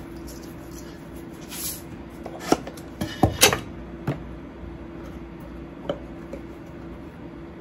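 A few light clicks and knocks of spice containers and their lids being handled at a kitchen counter, the loudest cluster about three seconds in, over a steady low hum.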